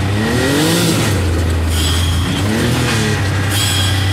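Can-Am Maverick X3 Turbo R's turbocharged three-cylinder engine running on the move, revving up and back down twice. Each rev is followed by a short hiss, the RPM V2 blow-off valve venting as the throttle closes.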